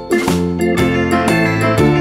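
Instrumental background music with evenly repeating notes.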